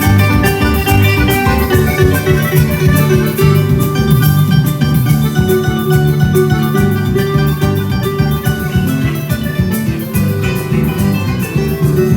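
Live Paraguayan music with bright plucked-string melody over a bass line and a steady rhythmic beat.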